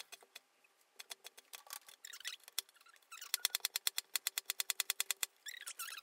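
Chef's knife chopping rapidly on a plastic cutting board, a quick run of sharp knocks as the blade strikes through spring onions and then carrots. From about three seconds in the knocks come louder and faster, about seven a second, as the carrots are diced.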